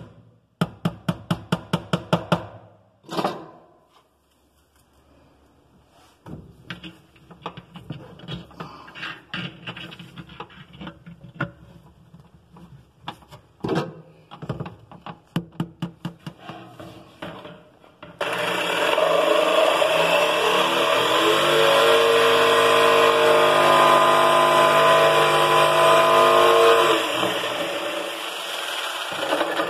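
A quick run of sharp clicks, then scattered knocks and rattles. From about two-thirds of the way in, an electric jigsaw runs loud and steady for about ten seconds, easing off near the end.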